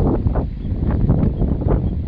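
Strong wind buffeting a phone's microphone in gusts, a loud rumbling noise.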